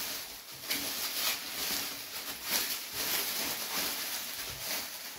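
Plastic food film crinkling and rustling in irregular crackles as it is folded and bunched up by hand.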